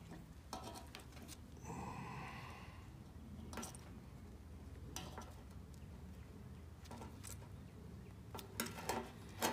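Faint clicks and handling noises of gloved hands working stripped copper wire around a plug's prong terminal, with a short faint noise about two seconds in and a few sharper clicks near the end.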